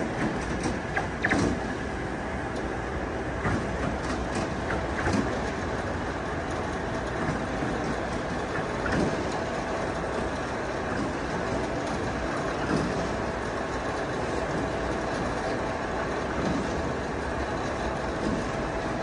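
Horyong PE700 ladder-lift truck running, heard from the top of the extended ladder: a steady mechanical noise with a faint steady hum and occasional small knocks.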